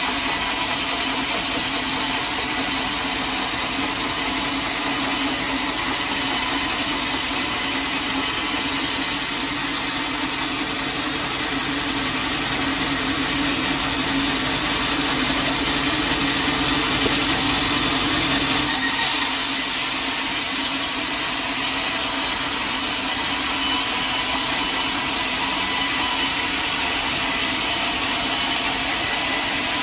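Sawmill saw cutting through a log: a steady, continuous sawing run that changes tone for several seconds midway.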